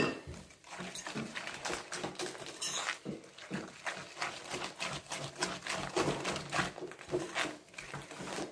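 Spoon or spatula stirring soft shortbread dough in a mixing bowl as flour is worked in a little at a time: a run of irregular short scraping and knocking strokes.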